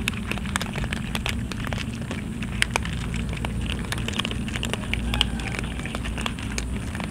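Many cats crunching dry kibble from a metal tray: a dense run of crisp cracks and clicks, over a steady low hum.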